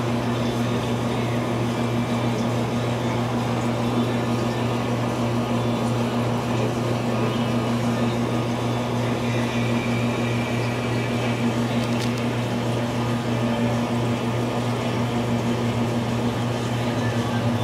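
Steady low electrical hum with a fainter higher hum above it, over a constant hiss: aquarium pump and filtration equipment running.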